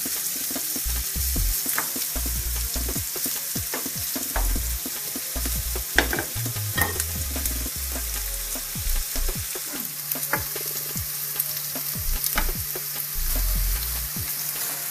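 Onions and smoked bacon sizzling as they fry in a pan to brown, a steady hiss with scattered clicks and scrapes as they are stirred; the sharpest click comes about six seconds in.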